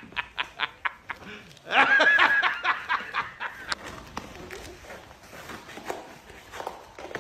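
A man's rapid, rhythmic laughter from a meme sound clip, fading out about a second in. A loud, short, pitch-bending voice follows about two seconds in, then fainter scattered rustles and taps.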